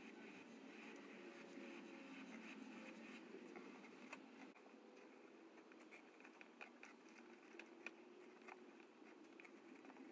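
Near silence: faint room tone with a few soft clicks and light scratching sounds.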